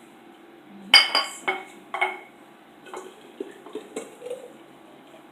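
Kitchenware clinking: four sharp, ringing clinks of a utensil against glass or crockery about a second in, then a run of lighter taps and knocks.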